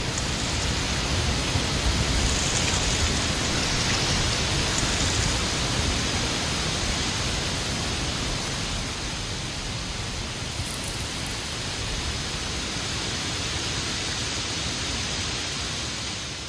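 Strong wind gusting through the trees and rustling dry autumn leaves: a loud, steady rush that peaks a few seconds in and then eases slightly.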